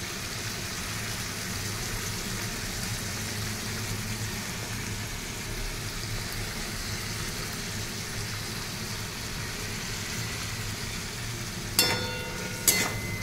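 Prawns, garlic and chopped onion frying in oil in a metal wok, a steady sizzle. Near the end a metal spatula strikes the wok twice with a ringing clank as stirring begins.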